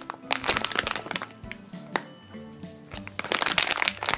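Clear plastic packaging bag crinkling and crackling in a series of quick crackles as a cupcake-shaped foam squishy is squeezed through it. Soft background music plays underneath.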